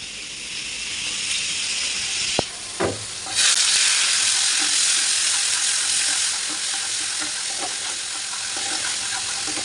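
Food sizzling in hot oil in a black non-stick kadai while a spatula stirs it, with a couple of short clicks from the spatula. The sizzle grows louder about three and a half seconds in.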